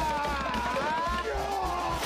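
Music with a wavering melody line that glides up and down in pitch over a steady low bass.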